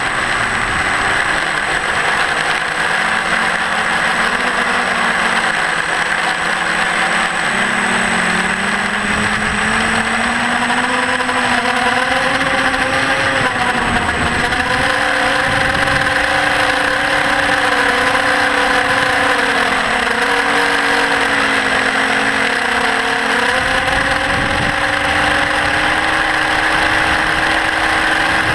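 TBS Discovery quadcopter's four brushless motors and propellers whirring in flight, a steady buzzing whine whose pitch drifts up and down as the throttle changes.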